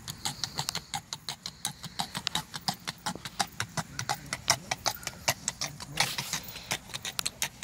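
Hoofbeats of a Tennessee Walking Horse on a paved road, a quick, even run of sharp clicks from its four-beat running walk. A brief rush of noise comes about six seconds in.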